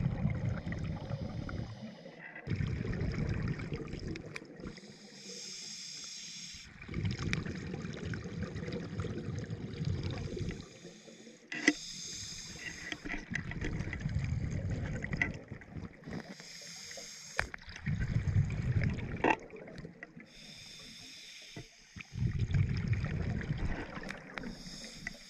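A diver breathing underwater, alternating every few seconds between a high hiss and a low bubbling rumble, with a few sharp clicks.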